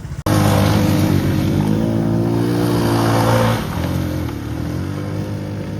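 Motor vehicle engine running loudly at a steady pitch, easing off a little after about three and a half seconds.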